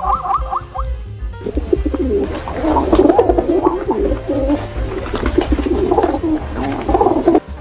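A flock of birds cooing together in low, overlapping warbling calls, over background music. A different repeated rising call is heard in the first second or so.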